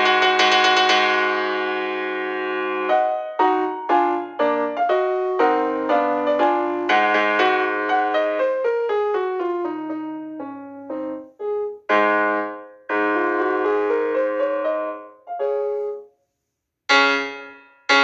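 Piano alarm melody. It opens with a quick run of notes into a ringing chord, then goes on in struck notes and chords that fade away, stops completely for under a second near the end, and starts again.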